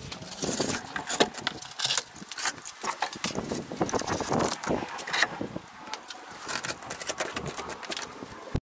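Snap-off utility knife blade cutting and scraping hardened glue squeeze-out off the seams of glued foam boards: a rapid, irregular crackling of many small clicks and scrapes, cut off abruptly near the end.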